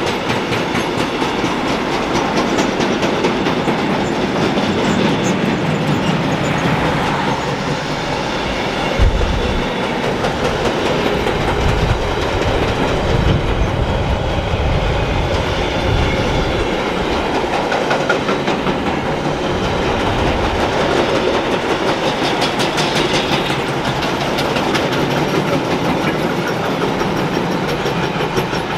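Train passing close by: a continuous rumble of wagons on the rails with rapid clickety-clack over the rail joints, and a sharp thump about nine seconds in.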